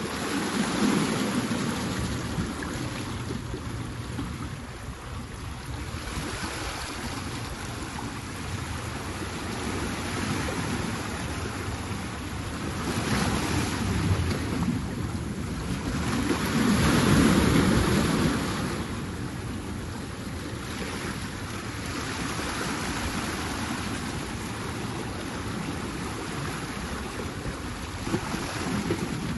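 Sea waves surging in and washing over large shoreline boulders, with swells building and falling away, the biggest about a second in, around thirteen seconds and around seventeen seconds in.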